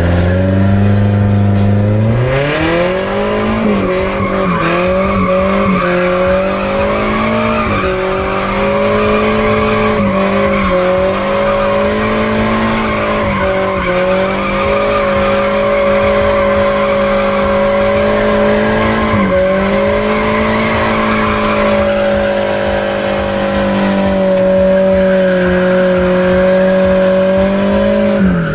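Nissan 240SX engine, heard from inside the cabin, held high in the revs through a long drift or donut session with the tyres squealing. The revs climb about two seconds in, dip briefly several times, and drop off at the end.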